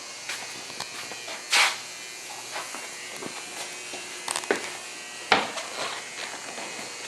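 Hinged side panels of a homemade car being handled and opened: scattered clicks and knocks of the hinges and panels, with a short louder scrape about a second and a half in and two sharp knocks near the end, over a faint steady hum.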